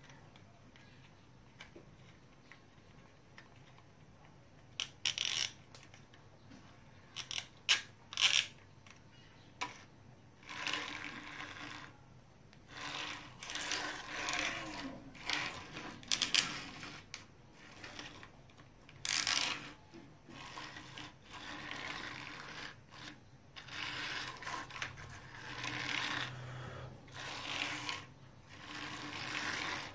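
Toy vehicles rolling and rattling across a tiled floor, plastic wheels scraping in a string of short, uneven bursts, after a few sharp clicks in the first seconds.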